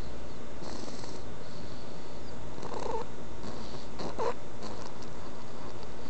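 Stridor in a sleeper: harsh, rasping, pitched noises on the breaths, several breaths about a second and a half apart, over a steady low hum.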